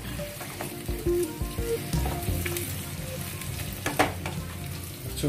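Sliced onions and tomatoes sizzling in a nonstick pan while a wooden spatula stirs them, with a few knocks and scrapes of the spatula against the pan. The onions and tomatoes are being sautéed soft as the base of a fish curry.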